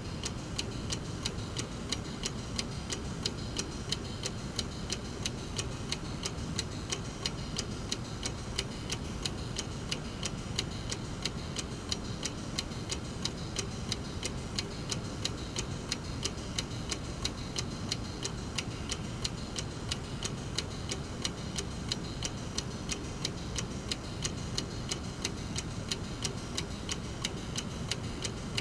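Brass mechanical clock movement ticking steadily, its escapement giving evenly spaced ticks about twice a second, over a steady low rumble.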